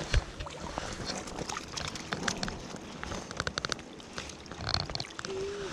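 Lake water lapping and splashing around a float tube, with scattered small clicks and knocks from handling fishing gear.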